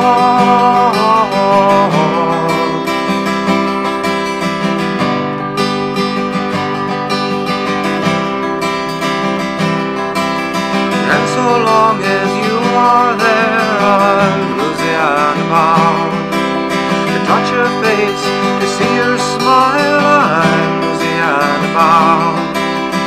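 Instrumental break of a song: guitar strumming under a lead melody line with vibrato that becomes more active about halfway through.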